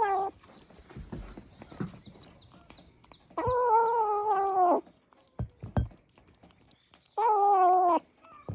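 A young kitten making a strange, drawn-out wailing meow twice while eating canned cat food for the first time, each call held over a second and sliding slightly down in pitch, with faint eating clicks in between.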